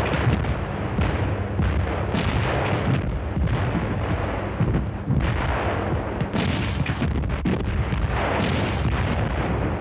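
Artillery fire from German 75 mm light infantry guns (leIG 18): heavy shots about every one to two seconds over a continuous rumble, the rapid rate of fire that the gun's simple shotgun-type breech allowed.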